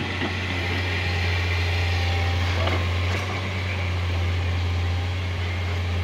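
Hydraulic excavator's diesel engine running with a steady low drone as the machine digs.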